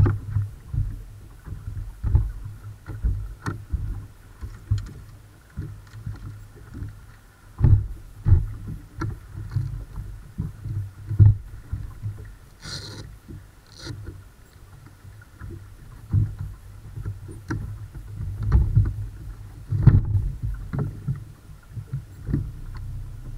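Small waves slapping and knocking against a bass boat's hull as it rocks at rest, giving irregular low thumps over a faint steady hum.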